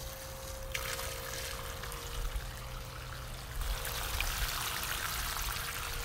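Steady rushing of running water, with a faint steady hum underneath.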